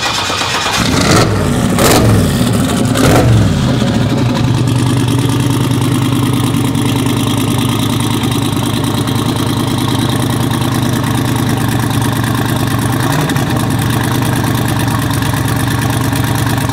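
Engine of a lowered Chevrolet Silverado pickup, just started, revved a few times in quick succession over the first few seconds, then settling into a steady idle.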